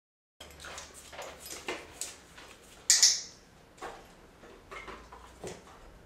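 A training clicker snapping once, sharp and loud, about three seconds in, marking the dog's behaviour for a treat. Around it come softer scattered taps and small handling noises as the dog stands on the bath mat and is hand-fed treats.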